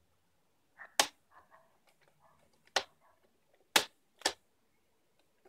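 Plastic screen bezel of an HP Pavilion dv6 laptop being prised off by hand: four sharp clicks as its clips snap loose, one about a second in, one near three seconds, and two close together near four seconds.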